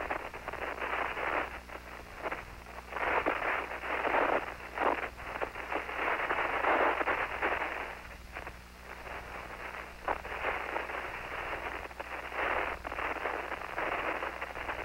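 Open radio channel on the shuttle's air-to-ground link: static hiss and crackle that swells and fades irregularly, over a steady low hum.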